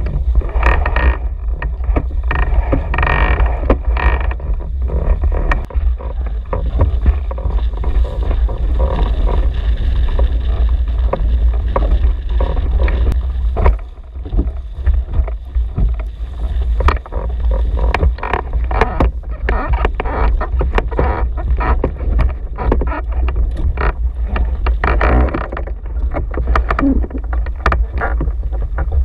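Hull and outrigger floats of a sailing canoe under way in strong wind, with water splashing and slapping against them over a steady heavy rumble of wind on the microphone.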